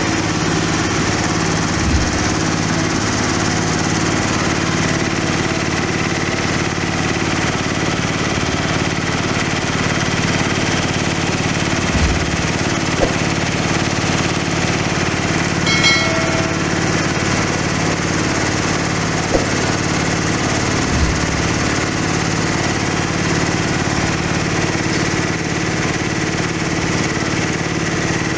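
Rice husk grinding mill running steadily with an even mechanical drone, and a few brief low thumps spaced well apart.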